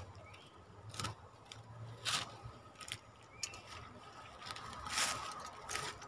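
Handling noise at a bamboo-and-wire bird trap as a caught bulbul is taken out: a few brief rustles and scrapes, about one, two and five seconds in, with faint short bird chirps between them.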